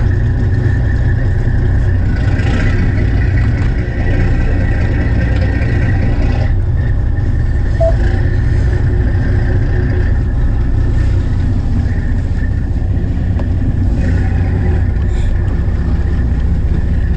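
Fishing boat's engine running steadily, a loud, even low drone with no change in speed.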